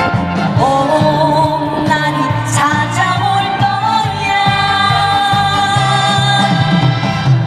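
Woman singing a pop song live into a handheld microphone over an amplified backing track, holding long notes with vibrato over a steady bass line.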